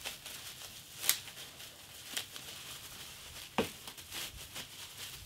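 Bubble wrap crinkling and rustling as it is pulled off a plastic playset piece, with three sharp crackles along the way.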